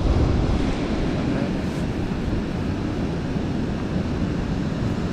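Steady rush of river water pouring over a dam spillway, with wind buffeting the microphone.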